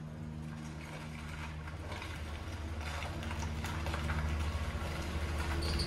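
Land Rover Series 3's 2.25-litre four-cylinder petrol engine running at low speed as the vehicle drives slowly up, growing steadily louder as it approaches.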